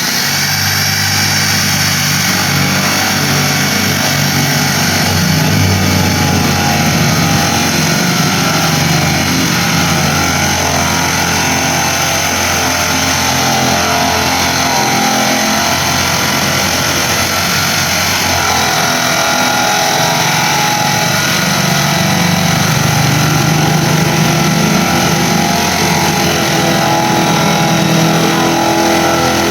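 Repurposed washing machine motor running steadily under power, with a constant high whine over a low hum that shifts a little.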